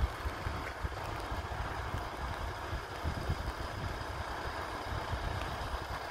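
Wind buffeting the phone microphone, an uneven low rumble, over a steady far-off hum.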